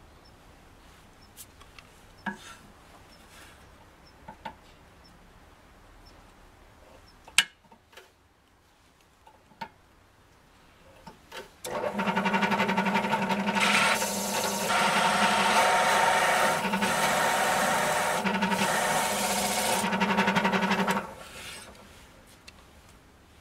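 Bench drill press with a two-arm circle cutter cutting a disc out of a wooden board: a steady, loud grinding whir begins about halfway through and stops fairly suddenly a couple of seconds before the end. Before it there are a few faint knocks as the wood is handled.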